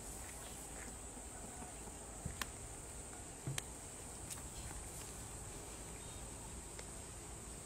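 Insects droning steadily at a high pitch, with a few scattered clicks and soft knocks about two and three and a half seconds in.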